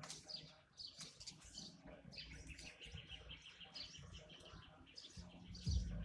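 Small birds chirping: quick, short, high chirps that slide downward, repeated throughout. A low, steady hum comes in about five seconds in and is louder than the chirps by the end.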